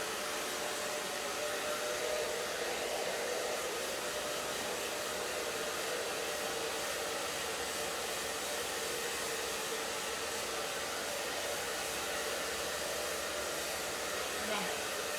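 Electric hair dryer running steadily at one setting: a constant blowing whir with a faint steady hum.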